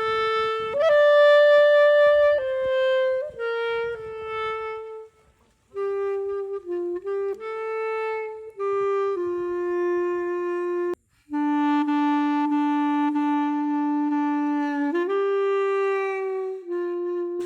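Music: a slow solo woodwind melody of held notes, clarinet-like in tone, with a few short breaks between phrases.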